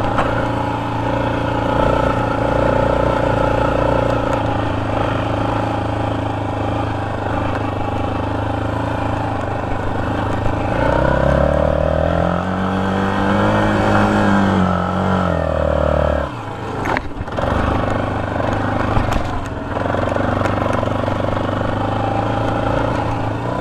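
Yamaha sport quad's engine running under throttle while riding on sand, mostly at a steady pitch. About halfway through it revs up in one long rise and then eases back down, with a brief drop off the throttle just after.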